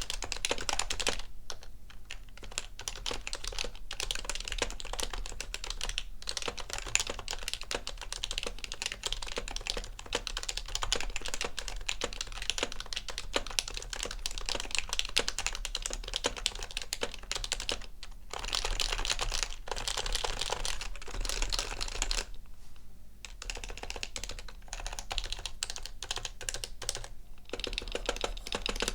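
Topre electrocapacitive key switches on a stock 2005 HHKB Pro 1 keyboard being typed on. The pace changes from normal typing to slower strokes with a few short pauses, and keys are hammered harder toward the end.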